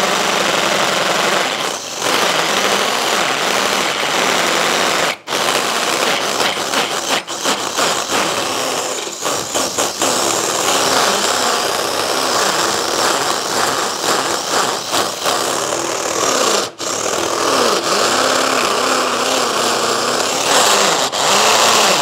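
Mollar MLR-CID20500-U cordless impact drill hammer-drilling into a concrete block with a long masonry bit. It runs almost continuously, stopping briefly about five seconds in and again near the end, with a short stop-start stretch in between.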